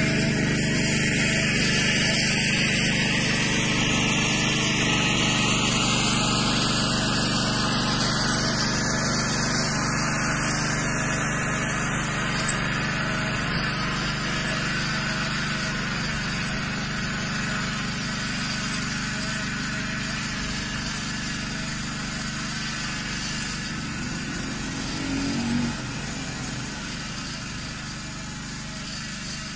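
Engine of a Yağmur YET 300 walking tractor (pat pat) running steadily while tilling garden soil, slowly getting fainter.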